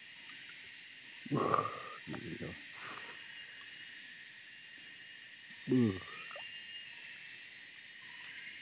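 A steady high hiss of outdoor stream-side ambience, broken by a man's short exclamations, three of them.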